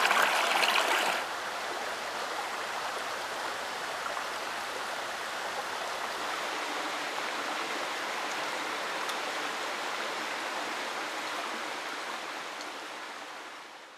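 Shallow rocky mountain creek running over stones: a close, louder splashing trickle for about the first second, then a steadier, softer rushing flow that fades out at the end.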